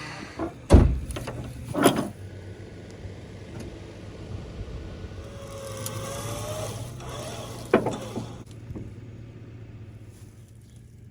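Mechanical knocks and clanks, three sharp ones with the first the loudest, over a steady low engine hum, with a short wavering squeak midway.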